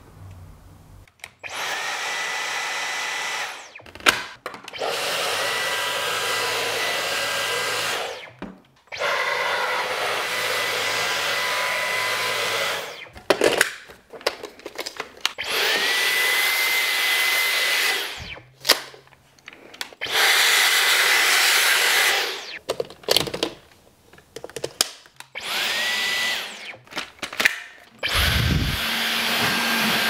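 Dyson V15 Detect cordless stick vacuum switched on and off again and again: about seven short runs of a few seconds each, a steady motor rush with a high whine that rises as the motor spins up at the start of some runs. Sharp clicks between the runs as buttons are pressed and attachments handled.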